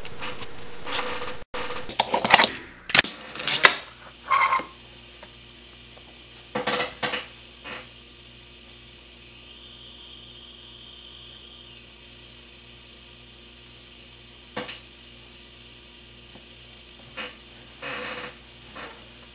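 Handling noise from a small digital camcorder being picked up and moved around by hand: irregular knocks and rubs against the camera body. They come in a cluster about two to five seconds in, again around seven seconds, and a few more near the end.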